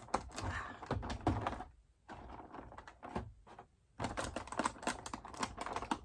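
Stiff clear plastic packaging tray being handled and pulled at, a run of irregular crackles and clicks. It pauses briefly about two seconds in and again just before four.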